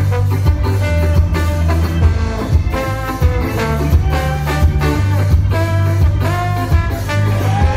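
Live ska band playing, with a trombone to the fore over a bass line and drum kit; some of the horn notes slide in pitch.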